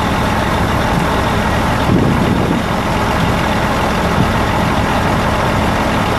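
Cummins six-cylinder turbo diesel in a 1979 GMC General grain truck, running steadily at idle, with a brief louder swell about two seconds in.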